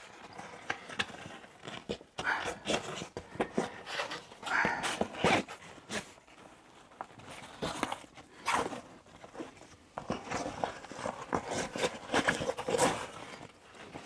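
Handling noise from a backpack pouch being fitted to the pack's webbing: fabric rustling and a webbing strap being pulled through loops, with irregular scrapes and light knocks.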